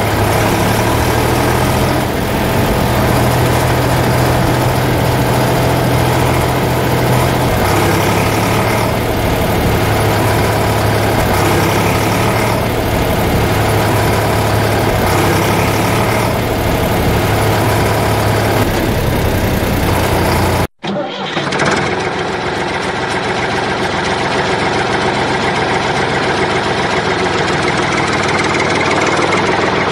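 A tractor engine running steadily at idle. About two-thirds of the way through it cuts out for an instant and comes back more muffled.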